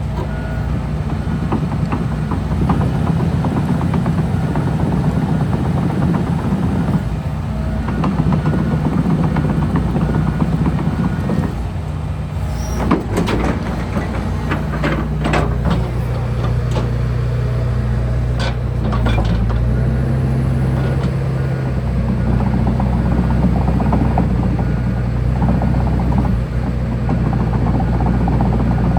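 John Deere 245G LC excavator's diesel engine running steadily as the machine is operated, its note shifting about halfway through, with several sharp knocks from the working machine in the middle.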